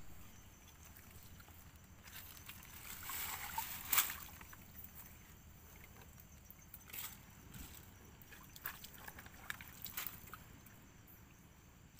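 Faint sloshing and squelching of wet mud and water as a hand and arm dig down into a deep mud crab burrow, with a louder slosh about four seconds in and a few small clicks and scrapes later.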